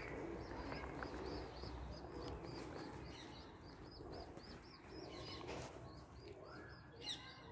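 A small bird chirping faintly and repeatedly, about three short high chirps a second, over a low background hum.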